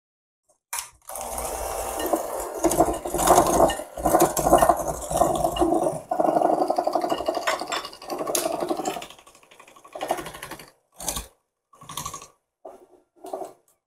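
Electric hand mixer whirring, its wire beaters churning thick cookie dough in a glass bowl as flour is worked into the creamed butter and sugar. It runs steadily for about eight seconds, then starts and stops in a few short pulses near the end.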